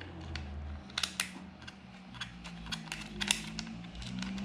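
Irregular sharp clicks and light taps of hand tools and small metal hardware as a screw with a washer is driven into a handguard mount, the loudest about a second in and about three seconds in.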